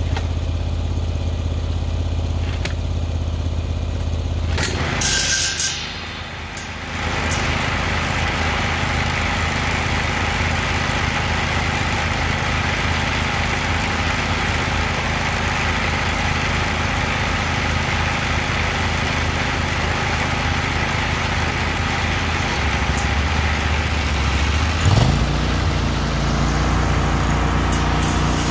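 Small lawn-mower engines of a zero-turn mower and its front-mounted saw-blade cutter running steadily. The sound dips briefly about five seconds in. Near the end an engine revs up and carries on at a higher pitch as the mower is driven off.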